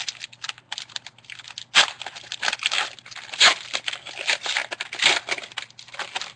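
Trading-card pack wrapper crinkling and tearing as it is ripped open and handled, a dense run of crackles that stops near the end.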